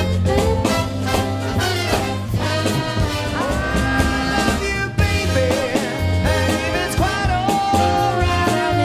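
Big band playing swing: a brass and saxophone section over piano, bass and drums, with held horn notes above a steady bass line.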